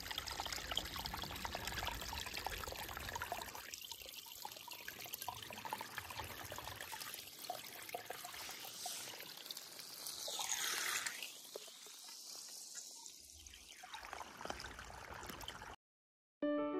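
Muddy rainwater runoff trickling down an eroded gully cut into a gravel roadside, a steady watery hiss. It cuts off near the end, and soft piano music starts just before the end.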